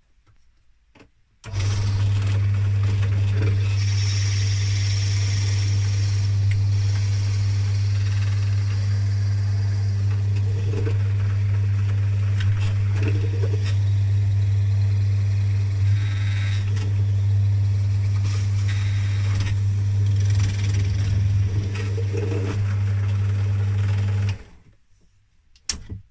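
Small bench drill press switched on, its motor running with a steady low hum while the bit bores lengthways through a wooden pen blank, with a few short scraping sounds from the cut. The drill is switched off abruptly about two seconds before the end.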